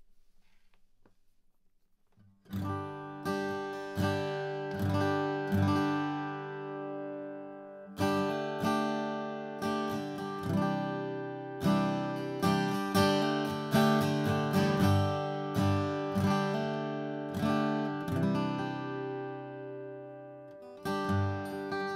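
Atkin Essential OM acoustic guitar played with a Wegen Bluegrass pick: after a couple of quiet seconds, picked single notes and chord strums ring out one after another.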